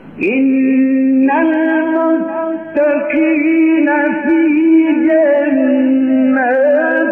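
A man's voice reciting the Quran in long, drawn-out melismatic notes, each held note wavering with ornaments, with one short break about two and a half seconds in. The sound is muffled, with no high end.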